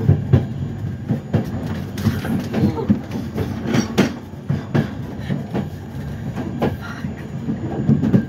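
Passenger train running over points and rail joints, heard from the rear coach: a steady low rumble with irregular wheel clatter and knocks.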